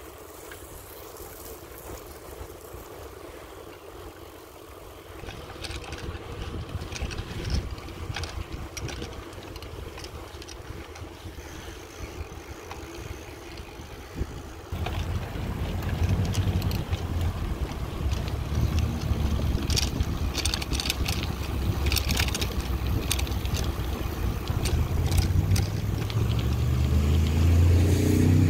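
Wind buffeting the microphone while riding a bicycle, a rushing rumble that gets louder about halfway through as speed picks up. Bursts of clicks and rattles come and go, and a low hum rises in pitch near the end.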